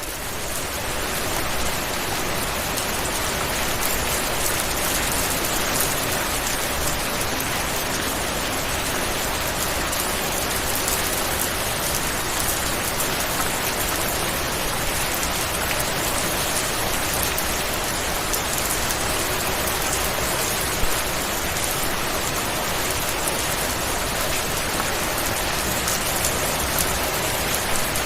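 Steady rain falling, an even hiss of many drops on a surface, swelling up in the first second and then holding level.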